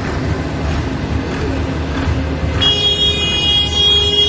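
Tractor engines running steadily in a passing parade. About two-thirds of the way in, a high, steady, piercing tone comes in and holds over the engine noise.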